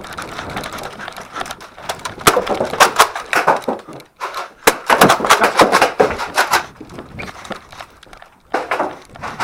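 Movement noise close to a head-mounted camera: a rapid, irregular run of knocks and clatter over rustling, busiest from about two to six and a half seconds in.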